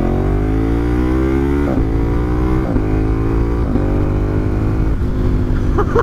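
KTM 1290 Super Adventure's V-twin engine accelerating hard, its pitch climbing through each gear. Four quick clutchless upshifts come about a second apart from just under two seconds in, made with the Healtech quickshifter; each is a brief cut and a drop in pitch before the engine pulls again.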